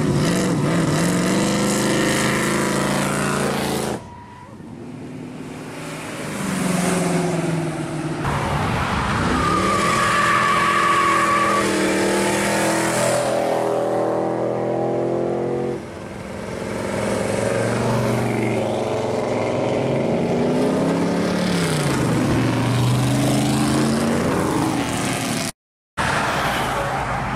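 Classic V8 hot rods and muscle cars accelerating past one after another, engines revving up and down as each goes by. Among them are a rat-rod coupe and a 1969 Camaro SS. A steady high squeal lasts about two seconds near the middle.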